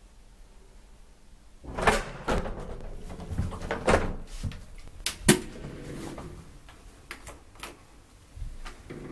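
Elevator doors opening at a floor on a 1957 Haack traction elevator: after a quiet second or so, a run of metallic clatters and clunks as the car doors open and the glass-panelled landing door is pushed open, the loudest clunk about five seconds in, then a few lighter clicks.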